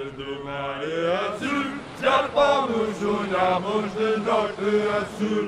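Vocal music with chant-like singing, louder from about two seconds in.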